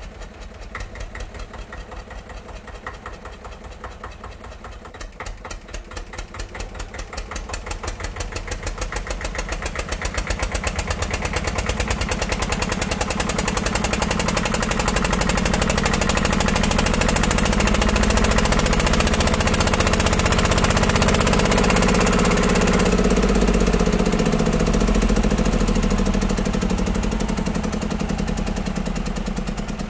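A motor running with a rapid, even knocking rhythm that grows louder over the first half and eases off near the end.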